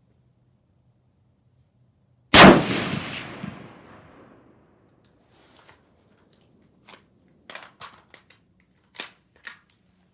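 A single rifle shot with a long echoing decay, followed by a few faint short clicks as the rifle is worked. The rifle stops after one round of the four called for, a malfunction that the shooters think could be a magazine not fully inserted.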